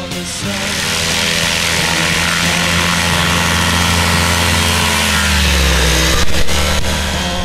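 Rotax 447 two-stroke engine of an ultralight trike running at full throttle on its takeoff run, the propeller buzzing steadily. Its pitch falls and it is loudest about six seconds in as the trike lifts off and passes close by.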